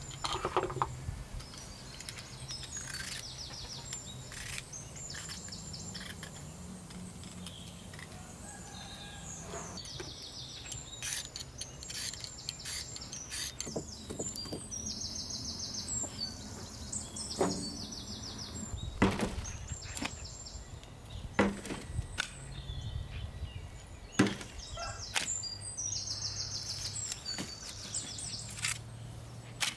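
Outdoor rural ambience: small birds chirping in short repeated trills, with scattered sharp knocks and a low steady hum underneath.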